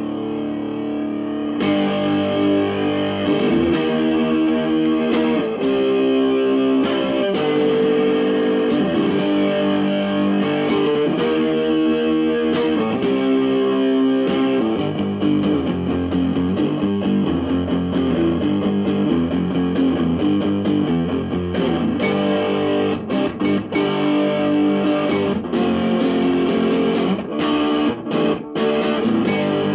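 Electric guitar played through a Tonebender-clone fuzz pedal, the distorted chords ringing out and changing every second or two, with quicker picked notes in the second half.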